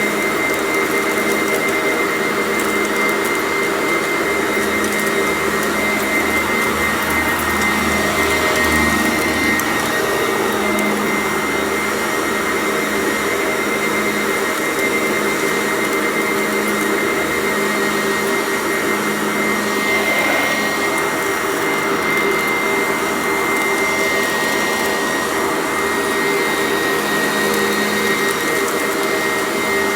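Sanitaire vacuum cleaner running steadily with a high motor whine, the noise shifting briefly a little under ten seconds in and again around twenty seconds.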